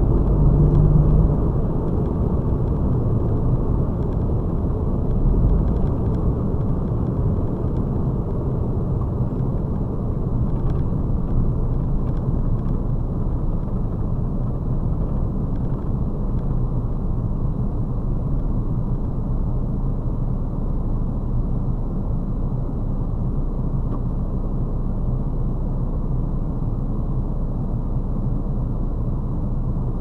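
Cab interior noise of a KAMAZ 54901 truck: diesel engine and road noise as a steady low rumble while the truck slows to a crawl, a little louder in the first couple of seconds.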